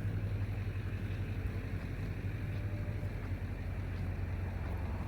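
A steady low mechanical hum, like an engine or machine running without change.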